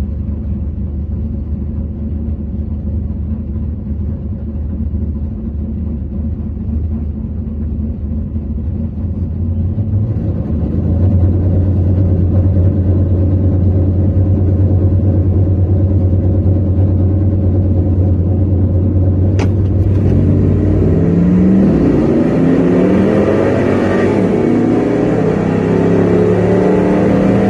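Drag-racing engines of a street pickup and a Camaro idling at the starting line with a steady low rumble, which grows louder about ten seconds in. About twenty seconds in they launch, and the engines rev up hard through the gears as they accelerate down the strip.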